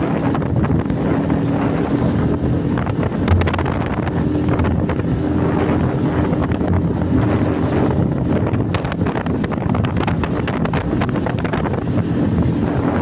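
Small outboard motor on a kayak-style skiff running at a steady cruising speed, with wind buffeting the microphone and water slapping the hull. A single thump about three seconds in.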